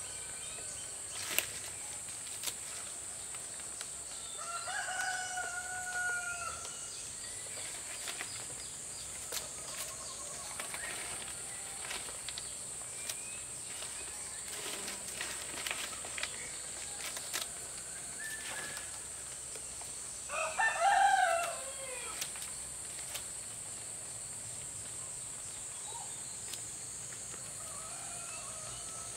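A rooster crowing twice: a fainter crow about five seconds in and a louder one about twenty seconds in, ending in a falling note. A steady high insect drone runs underneath, with a few sharp knocks, the loudest about a second in.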